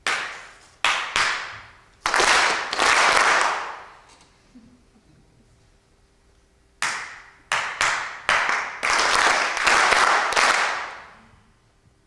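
Bare hand claps ringing in a theatre, in two groups about three seconds apart. Each group opens with a few sharp claps and runs into a longer rush of sound lasting about two seconds.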